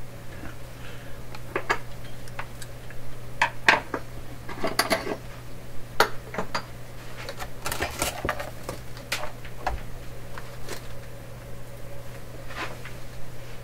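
Metal tools and parts clinking and clattering as they are handled on a workbench, in a run of irregular knocks and clicks, over a steady low hum.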